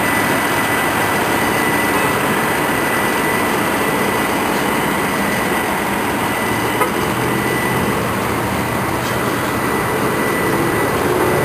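Steady rumble and road noise of a vehicle moving slowly, with a faint thin high tone over it.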